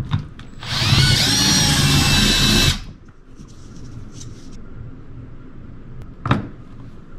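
Cordless drill with a step drill bit boring out a larger hole in the plastic wall of a cooler. It runs with a whine for about two seconds, then stops. A single short click comes near the end.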